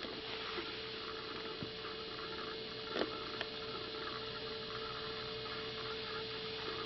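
A steady background hum, with one soft click about three seconds in.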